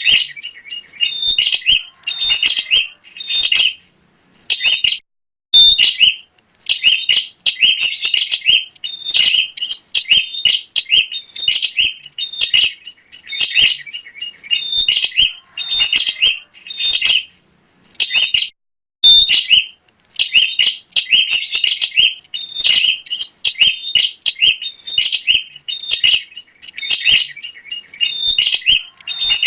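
Prinia (prenjak) singing energetically: rapid, high-pitched chattering phrases repeated in bursts of a second or two, with short pauses between.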